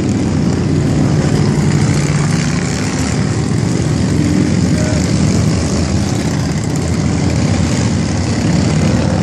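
A stream of cruiser and touring motorcycles riding past one after another, their engines making a loud, steady, low rumble.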